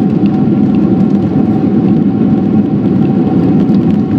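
Jet airliner cabin noise during the landing roll: a loud, steady rumble of the engines and the wheels on the runway, with a faint steady hum above it.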